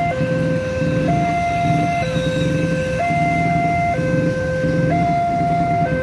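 An electronic hi-lo warning alarm alternates between two pitches, each held about a second, over passenger coaches rolling past close by on the rails.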